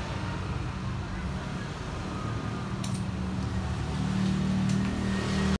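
A steady low engine rumble, like a motor vehicle running nearby, with a few faint clicks.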